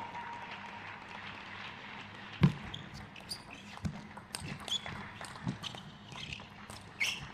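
Table tennis rally: a plastic ball clicking off rubber-covered paddles and bouncing on the table in quick irregular succession, with short squeaks of players' shoes on the court floor. A sharp thump about two and a half seconds in is the loudest sound.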